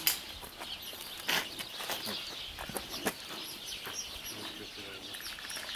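Small birds chirping over a background hiss, with a few sharp clicks in the first few seconds.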